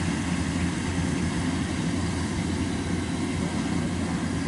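Kubota DC-93 combine harvester running steadily while harvesting rice in a flooded paddy: an even, low engine drone with no change in pitch.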